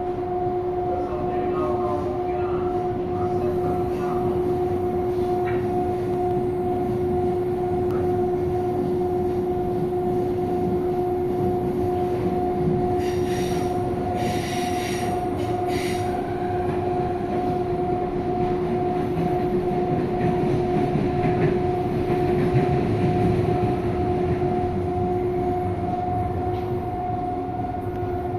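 Interior sound of a CPTM Série 2000 electric multiple-unit train: a steady rumble with a constant two-note electrical hum running underneath. About halfway through, a higher-pitched hiss or squeal comes in for a few seconds.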